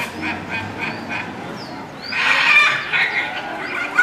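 Blue-and-yellow macaws calling: a run of short repeated calls, then a loud harsh screech about two seconds in that lasts about a second.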